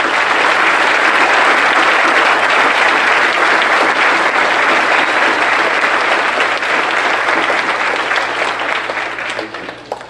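Audience applauding: many people clapping together, dying down near the end.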